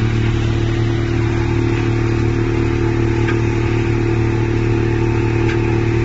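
Electric-motor-driven wood hammer mill running steadily at full speed, grinding wood into shavings, with a constant deep hum and grinding noise.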